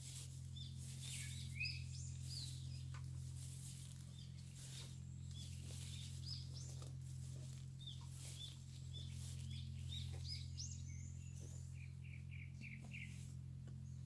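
Small birds chirping: short high calls scattered throughout, with a quick run of four or five near the end, over a steady low hum.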